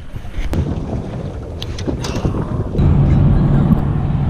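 Wind on the microphone out on a boat, with a few light clicks. About three seconds in, it cuts to the steady low drone of a car driving on the highway, heard from inside the cabin.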